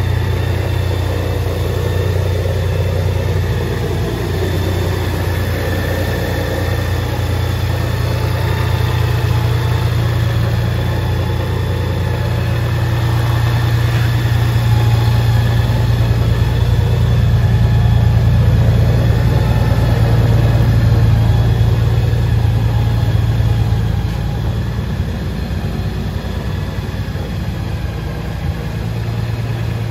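Honda GL1800 Gold Wing's flat-six engine idling steadily. It grows a little louder through the middle and drops back about two-thirds of the way in.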